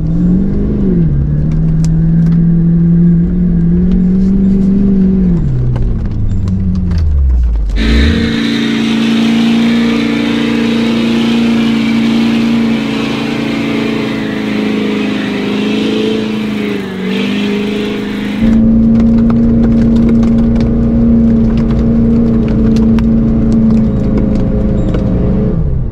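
Lifted Ford F-350 pickup's engine revving under load while its duct-tape-wrapped tires spin in soft mud, the truck stuck. The revs climb and hold, then drop away about seven seconds in. After that the engine is held at steady high revs, with a hiss of spinning tires and flying mud for the next ten seconds.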